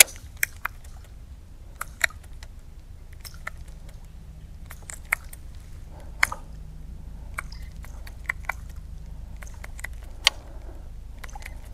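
Topwater stick lure being twitched across calm water, giving short irregular pops and little splashes, over a low steady hum.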